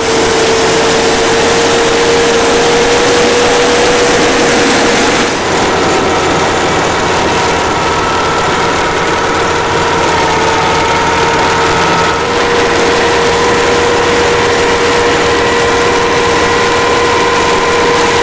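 Engine of a Vermeer XTS1250 tracked ride-on tractor running steadily as it works, with a steady whine through it; the sound shifts slightly in tone about five and twelve seconds in.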